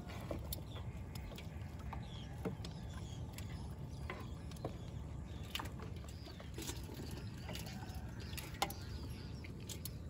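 Fish and water being handled in a small boat: scattered light clicks and slaps every second or so, over a steady low rumble, with a few faint bird chirps.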